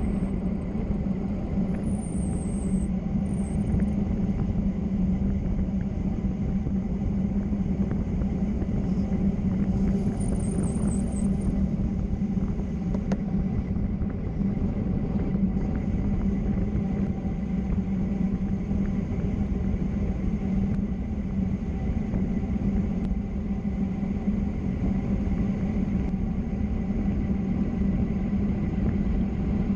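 Steady road and wind rumble of travel on a downhill road, with faint high chirps near the start and again about ten seconds in.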